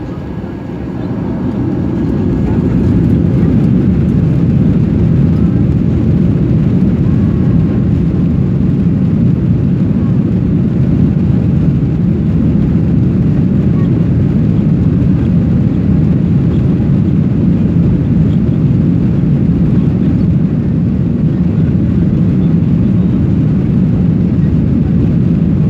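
Jet engines of a Boeing 737-800 (CFM56-7B) heard from inside the cabin, spooling up to takeoff thrust over the first two or three seconds. After that comes a steady, low, rushing noise as the aircraft makes its takeoff run.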